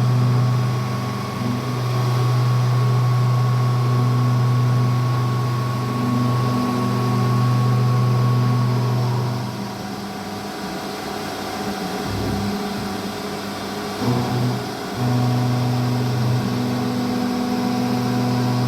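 Kunzmann WF7 CNC milling machine running with a steady low hum. The hum drops away about ten seconds in, starts briefly a couple of times, then settles back to a steady run.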